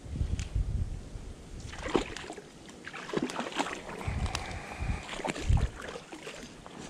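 A hooked trout splashing and thrashing at the surface of a small stream, several splashes through the middle, with wind rumbling on the microphone.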